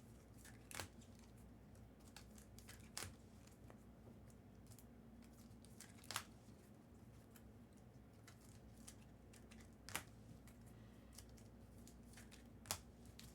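Near silence broken by five faint, sharp clicks and rustles, spaced a few seconds apart, from handling trading cards and their packaging.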